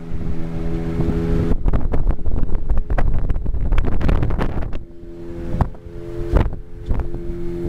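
Motorboat engine running steadily under way, with wind buffeting the microphone and knocks that drown out the engine's drone through the middle; the drone comes clear again for the last few seconds.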